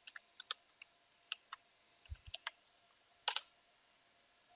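Computer keyboard keys clicking at an irregular pace as a terminal command is typed, with a louder key press about three seconds in.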